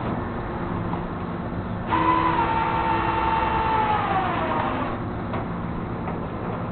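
Steady vehicle running noise, broken about two seconds in by a horn that sounds for about three seconds. Its pitch holds, then slides downward before it cuts off.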